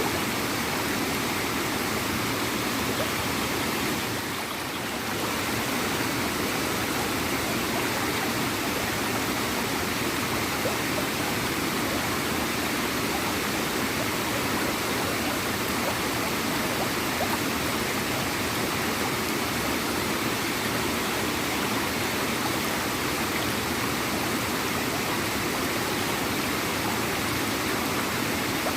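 Small waterfall and stream flowing steadily with a gurgling rush of water, dipping slightly for a moment about four seconds in.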